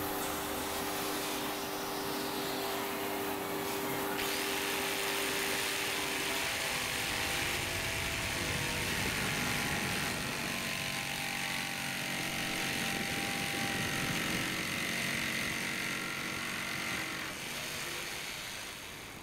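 Stationary edge belt sander running with a steady hum while the edge of a wooden rudder blade is sanded. About four seconds in it gives way to a jigsaw sawing through the wooden rudder blade, a harsher buzzing that runs until near the end.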